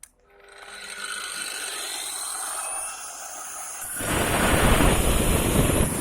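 230 mm Dnipro-M MShK 2300P angle grinder starting on its soft start, its whine rising gradually as the motor spins up. About four seconds in, a loud, harsh grinding noise sets in as the diamond disc cuts into brick.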